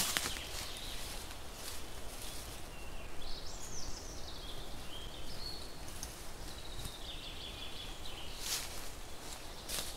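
Rustling of dry leaf litter and canvas as a tarp is set up low to the ground, with a few louder rustles near the start and near the end. A bird sings in the background, a warbling high song from about three seconds in.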